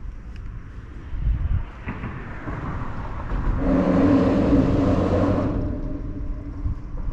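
A motor vehicle passing by, swelling to a peak about four to five seconds in and then fading, with a steady engine note under the noise, over a low, uneven rumble.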